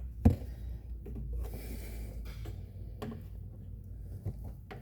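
A single sharp knock about a third of a second in, then a few faint clicks and handling noises over a steady low hum.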